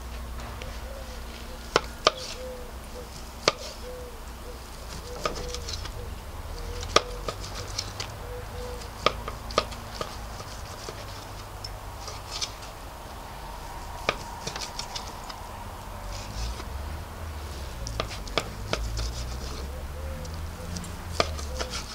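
Knife slicing grilled steak on a wooden cutting board, the blade knocking sharply against the board now and then, about a dozen taps in all.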